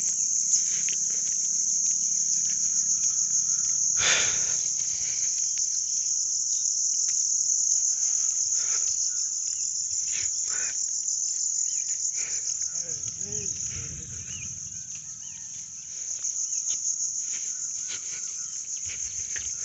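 Steady high-pitched insect chorus, a continuous fine shrill trill, with scattered faint knocks and rustles.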